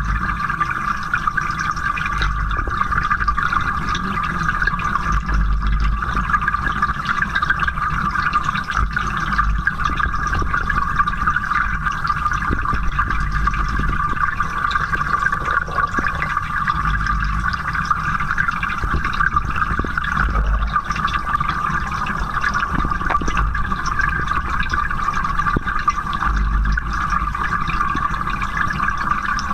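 Steady muffled water noise heard through a camera held underwater, with irregular low rumbles from water moving against it.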